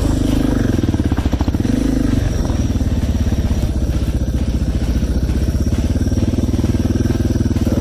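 Suzuki DR650's single-cylinder four-stroke engine under way on a dirt trail: the engine note rises and falls with the throttle during the first two seconds, then runs steady.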